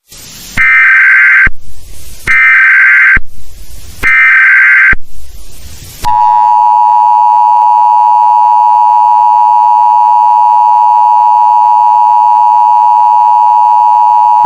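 Emergency Alert System SAME header: three loud bursts of warbling data tones, each about a second long with short gaps between them. Then, about six seconds in, the steady two-tone EAS attention signal begins and holds.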